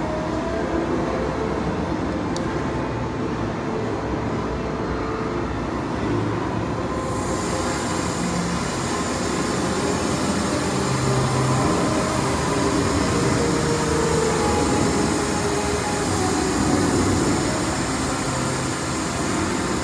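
Steady railway-station din from the Hogwarts Express platform, with train sounds in it; a brighter hiss joins about seven seconds in and keeps going.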